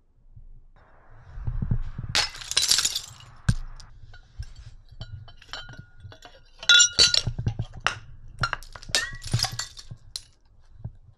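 Hanging glass bottles full of coloured liquid being smashed one by one: several loud shatters, with clinks and short ringing tones from the glass between them.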